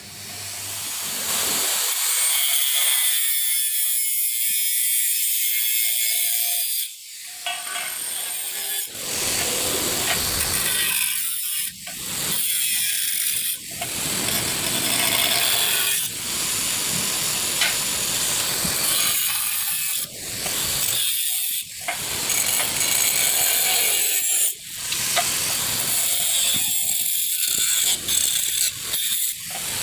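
Handheld angle grinder cutting a light-gauge galvanized steel channel: a loud, steady screech that builds up about a second in and dips briefly several times.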